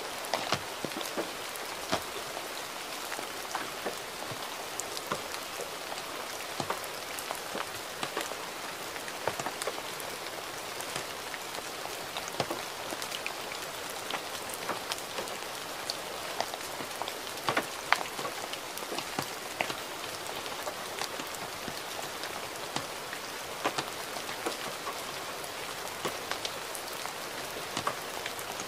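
Gentle rain falling steadily: a constant hiss scattered with many separate drops landing as short sharp ticks, a few louder than the rest.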